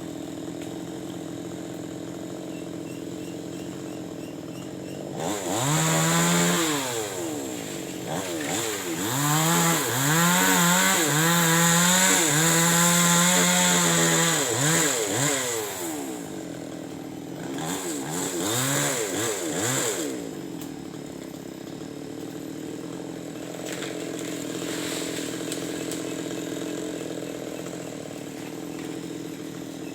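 Chainsaw engine idling, then revved up to a high-pitched scream three times, the longest run lasting about six seconds in the middle, before dropping back to a steady idle for the rest.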